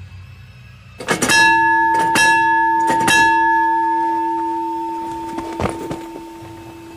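A deep bell struck three times about a second apart, each strike a quick double hit, then left ringing and slowly dying away. A low drone comes before the first strike, and a sharp click sounds about five and a half seconds in.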